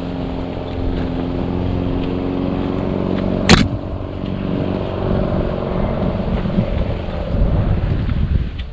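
A motor vehicle's engine running steadily, with a single sharp knock about three and a half seconds in.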